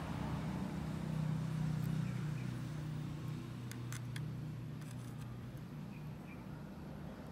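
A steady low engine drone, a little louder in the first two seconds and slowly easing off. A few light clicks about four and five seconds in, from metal tweezers tapping a plastic cup.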